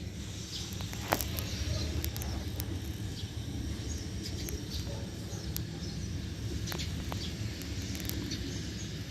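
2003 Nissan Sentra engine idling with a steady low rumble, while birds chirp now and then and a few sharp clicks sound.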